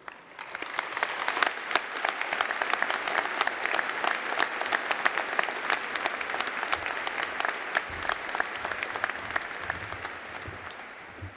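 Large audience applauding, building up within the first second and dying away near the end.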